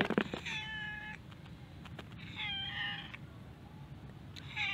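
A tortoiseshell cat meowing three times, each meow under a second long, the last near the end.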